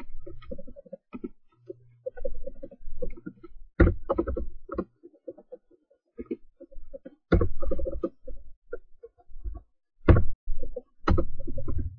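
Computer keyboard and mouse being tapped and clicked in irregular runs, with a few louder knocks about four, seven and ten seconds in.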